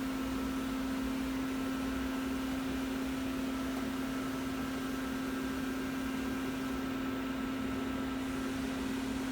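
Steady machine hum with one strong, constant low pitch over a light hiss.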